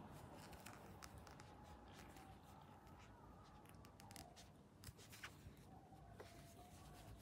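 Near silence with faint scattered ticks and rustles of a metal crochet hook drawing yarn through a slip stitch.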